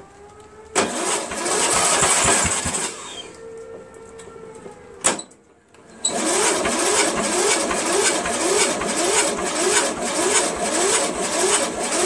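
Cub Cadet MTD lawn tractor engine cranked over by its electric starter in two tries: a short one about a second in, then after a click and a pause, a longer one from about six seconds in, turning over in an even beat of roughly two a second without catching. The engine only fires a little; the owner suspects old gas or something else in the carburetor.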